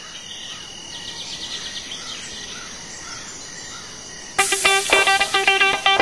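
A steady high insect drone with faint repeated chirps, then about four seconds in, loud plucked electric guitar music starts abruptly in a quick rhythmic pattern.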